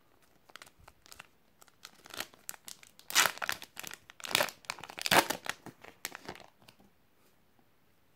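Foil trading-card packet crinkling and tearing as it is ripped open by hand, a run of crackles that is loudest a few seconds in.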